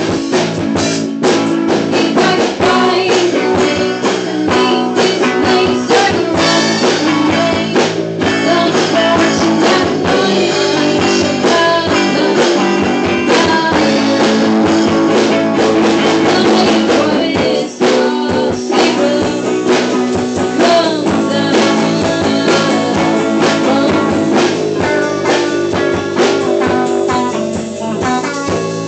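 Rock band playing a song: guitars, bass guitar and a drum kit, loud and continuous.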